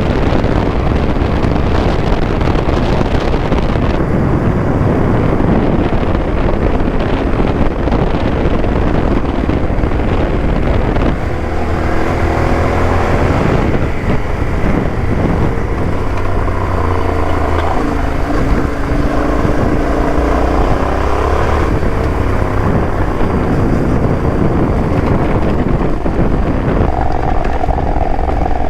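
Yamaha Ténéré 700's parallel-twin engine and exhaust running under way on a dirt trail, its pitch rising and falling with the throttle through the middle of the stretch. Wind noise on the microphone runs throughout.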